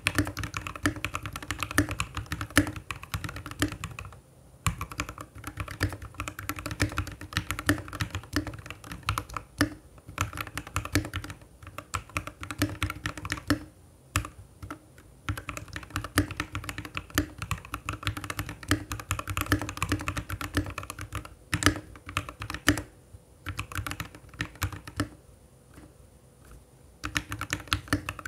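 Typing on a VX64 mechanical keyboard with its stock keycaps: a fast, continuous run of key clicks and clacks, with a few short pauses.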